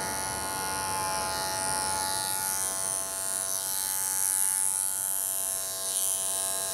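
Electric dog-grooming clippers running with a steady, even hum.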